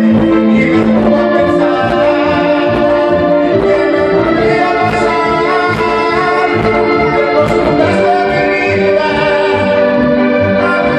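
Karaoke backing track playing an instrumental break with no singing: a melody of long held notes, tagged as brass, over a steady bass beat.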